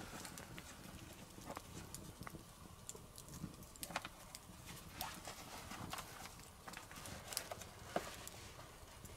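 Wood campfire crackling, with irregular sharp pops; the loudest pops come about four seconds in and near the end.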